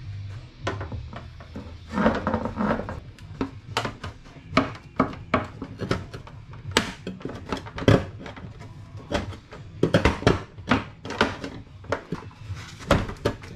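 Carbon-fibre slam panel being handled and offered up over a car's radiator support: a run of irregular knocks, taps and clicks as the panel bumps against the front end.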